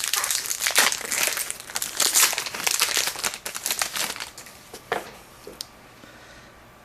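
A trading-card pack's wrapper being torn open and crinkled: dense crackling for about four seconds, dying down, with a single click near the end.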